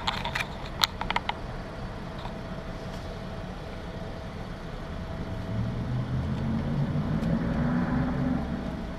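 A car engine's low rumble swells for a few seconds in the second half and then eases off. A few sharp clicks come near the start.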